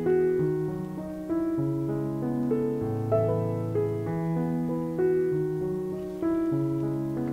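Background piano music: slow, gentle keyboard notes held over a bass line that changes about once a second.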